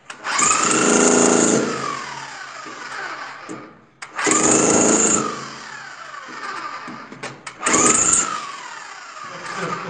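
Corded electric hammer drill boring into concrete in three short bursts. After each trigger release the motor winds down with a falling whine.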